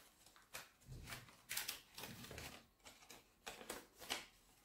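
Faint, irregular rustling and crinkling of a sheet of paper being handled, with broom straws threaded through it as kite spars. It comes as a string of short rustles.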